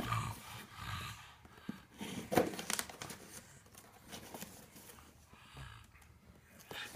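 Intermittent crinkling and rustling with a few sharp clicks, like paper or plastic being handled.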